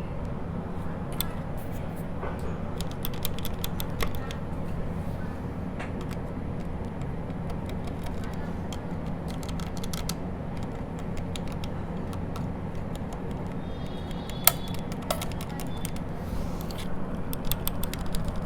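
Typing on a mechanical keyboard fitted with Outemu Silent White switches: very quiet, soft keystrokes in irregular runs, with one sharper click about two-thirds through, over a steady low hum.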